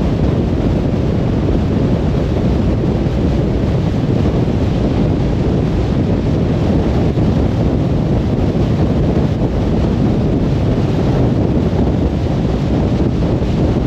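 Car driving at speed on a motorway: a steady, even rumble of tyre, road and wind noise, mostly low in pitch.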